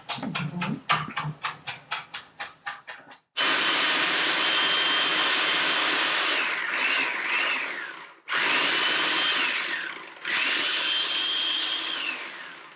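A knife chopping herbs on a cutting board in quick, even strokes, about six a second. About three seconds in, a food processor motor starts with a high whine and runs in three bursts, its whine dropping as each burst ends, as the herbs are chopped fine.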